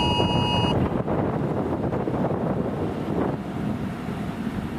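Strong wind buffeting the microphone, a steady low rushing noise. For the first moment an electronic beeping tone sounds, then stops.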